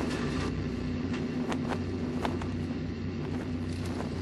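A steady low engine drone with a few faint, brief clicks.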